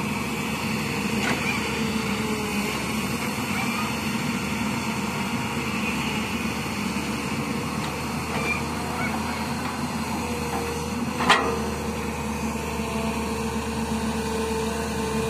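Hyundai crawler excavator's diesel engine running steadily as it digs, with a whine that comes and goes. A single sharp knock about eleven seconds in.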